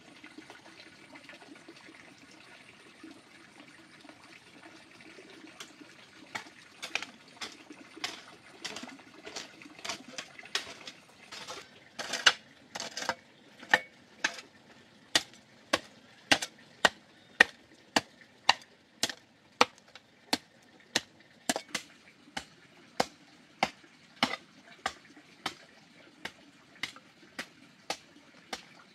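A long, steady run of sharp knocks, a tool striking over and over at about one blow every three quarters of a second. The blows start about six seconds in and grow louder about halfway through.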